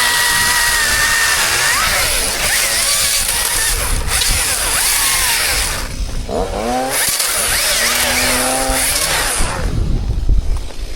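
Chainsaw running at high throttle through a cut, easing off briefly about six seconds in and dropping away near the end.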